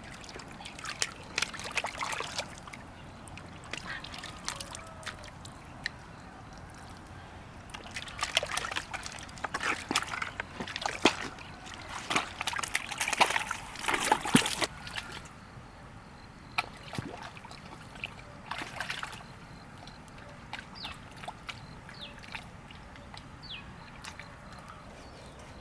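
Water splashing and sloshing in irregular bursts, busiest in the middle, as hands or fish work in shallow water.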